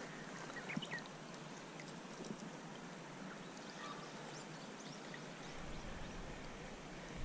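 Shallow stream water running over a pebbly bed, a steady hiss, with a few faint ticks.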